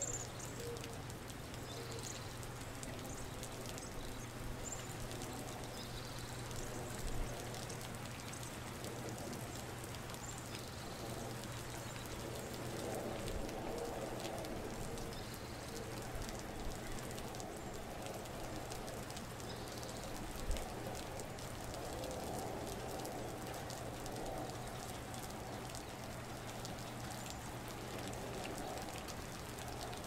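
Steady rain pattering onto wet pavement and puddles, with a steady low hum underneath. Two single louder knocks stand out, about a quarter and two-thirds of the way through.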